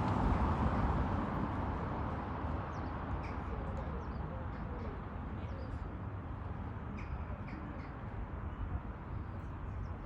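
Small birds chirping in short high calls, scattered in little clusters, over a steady low background rumble that eases off during the first couple of seconds.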